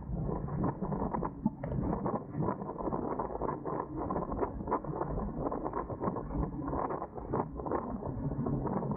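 Dense irregular creaking and clicking over a steady low rumble of wind and water: a Dart 18 catamaran's fittings and mountings working under sail.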